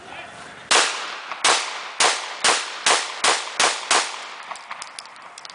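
Caracal F 9mm pistol firing eight shots in quick succession with Russian Tula military surplus rounds, the shots coming faster toward the end. A few faint light clicks follow the last shot.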